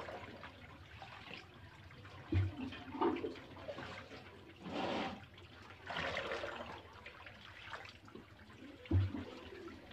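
Soy milk splashing and sloshing as a bucket is dipped into a tofu vat and poured out, in several separate pours. Two dull thumps come, one a couple of seconds in and one near the end.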